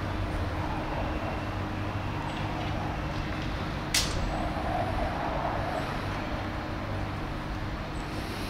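Tram running along a street stop over a steady low hum of city traffic, with a single sharp click about four seconds in.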